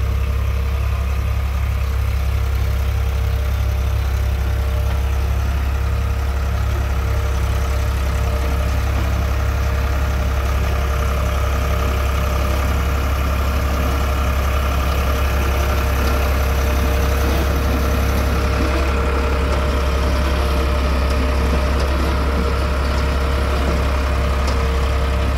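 Tractor engine running steadily as it pulls a mounted potato planter, a continuous low drone with a steady mid-pitched hum over it.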